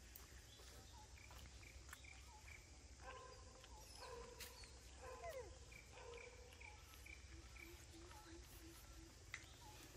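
Faint forest ambience, close to silence: short high chirps repeating steadily, with a few short held calls and one falling call about midway.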